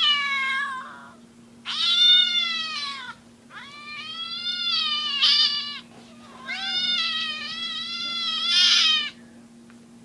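Cat meowing: a string of long, drawn-out meows, each rising and then falling in pitch, stopping about a second before the end.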